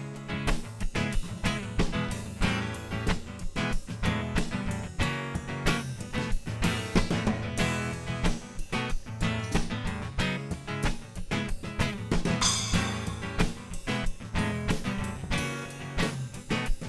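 Instrumental break in a live song: guitar playing over a steady beat from hand percussion, with no singing.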